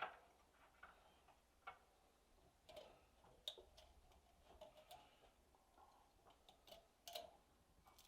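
Faint, irregular small clicks and light taps: kitchen items being handled on a counter during food preparation.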